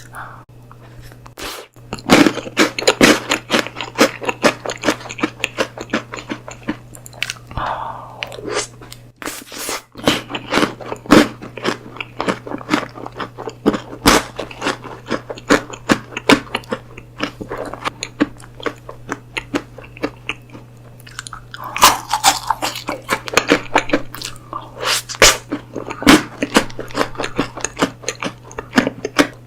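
Close-miked mukbang eating sounds: crisp crunching bites and chewing, a rapid run of sharp crackles throughout, over a faint low steady hum.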